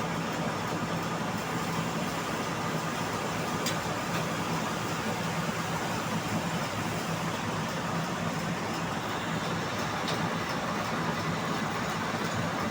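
Band sawmill running steadily, a constant machine hum under an even noise of the running blade, with a couple of faint clicks.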